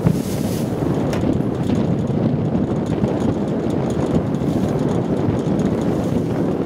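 Wind buffeting the microphone: a steady, rumbling rush with no let-up.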